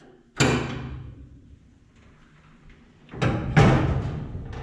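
One-piece sheet-metal hood of a 1940 Chevy pickup slammed shut: a sharp bang about half a second in that rings and dies away, then a second, louder bang near the end as the hood is pushed down onto its latch.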